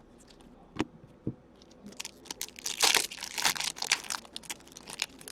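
Trading-card pack wrappers crinkling and being torn open as packs are handled, a couple of light clicks at first, then a dense stretch of crackling from about two seconds in.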